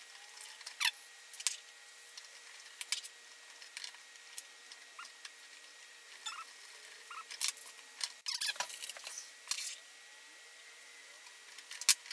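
Small irregular clicks, taps and scrapes of hand assembly: screws, spacers and pliers handled against a laser-cut wooden enclosure and its circuit board. There is a busier run of clicks about eight seconds in and a sharp click near the end.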